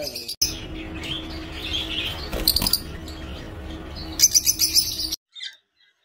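Caged lovebirds and other small parrots chirping, with fast high chatter about two and a half seconds in and again near four to five seconds, over a steady low hum. After about five seconds the sound drops to quiet with only a few single chirps.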